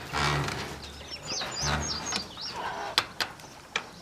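Birds chirping: a quick run of short, high chirps in the middle, among farm poultry, with two brief bursts of noise before and during it and a few sharp clicks near the end.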